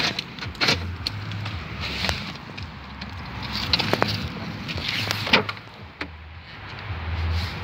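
Handling noise from a hand-held camera being swung around a car: rustling and several short knocks over an uneven low rumble that comes and goes.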